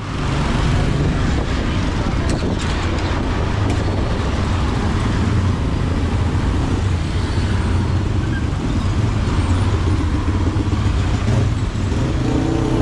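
Steady motor-vehicle engine and road noise, a low rumble under a broad hiss, heard while riding through city traffic.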